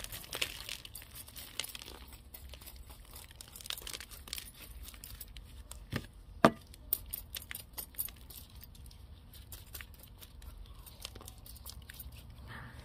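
Gritty potting mix and small stones crackling and trickling as soil is loosened and shaken out of a succulent's root ball, with many small clicks and two sharper knocks about six seconds in.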